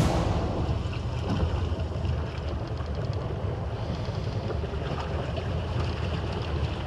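Low steady rumble of a small fishing boat out on the open ocean, with wind buffeting the microphone and water around the hull.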